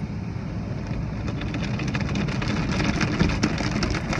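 Automatic car wash heard from inside the car: the spinning cloth brushes and water spray working over the windshield and body, a steady rumble with a dense patter of slaps and splashes that thickens about a second in.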